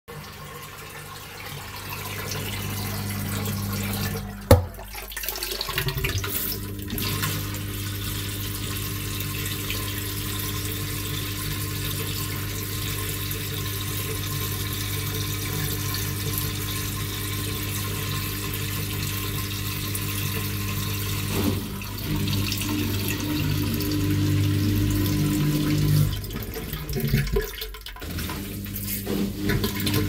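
Samsung WF8750LSW1 front-load washer draining: the drain pump runs with a steady hum while water rushes through the drain hose. A sharp knock comes about four and a half seconds in, and the hum drops out briefly just after it and again near the end.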